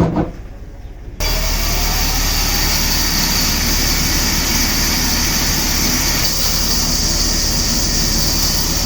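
Machinery running with a steady loud noise and a low hum, cutting in abruptly about a second in.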